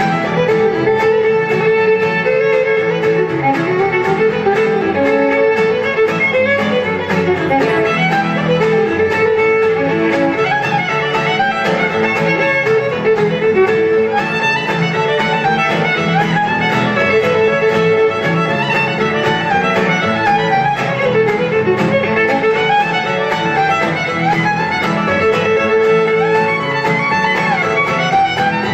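Fiddle playing a tune, with acoustic guitar accompaniment underneath.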